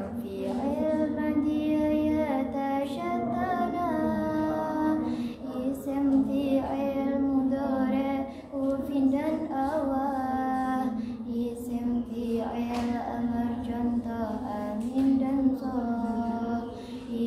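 A girl chanting memorised Arabic grammar (nahwu) verses solo in a sung melody, holding and bending notes, with brief pauses about five and eight seconds in.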